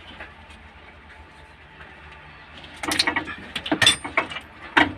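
Several sharp metallic clicks and knocks from hand tools and fuel-line fittings being worked in a diesel engine bay. They come irregularly in the second half, over a low steady hum.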